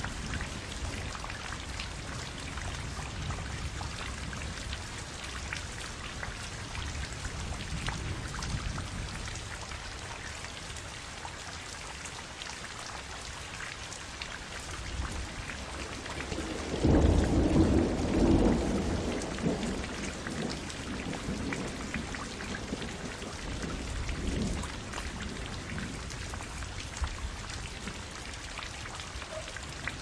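Steady rain falling, with a low roll of thunder a little past halfway, the loudest sound, and a fainter rumble about seven seconds later.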